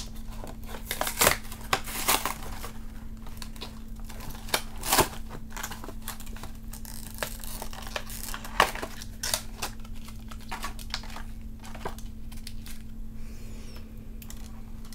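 Plastic toy packaging being handled and pulled open: irregular crinkling and crackling with sharp clicks, as a spinning-top toy is worked out of its pack.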